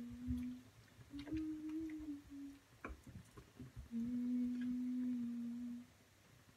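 A person humming long, steady low notes in three phrases, the pitch stepping up and down between them. A wooden spoon gives light knocks and scrapes against a skillet.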